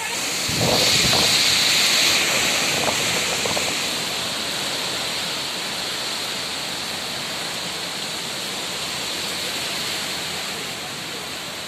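Cyclone wind and heavy rain, a steady rushing noise, with a stronger gust from about half a second in that lasts a couple of seconds and buffets the microphone.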